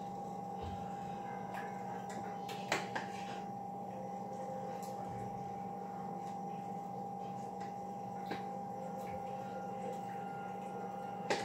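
A steady hum with a few faint, short clicks of a utensil against a cooking pot, the clearest nearly three seconds in.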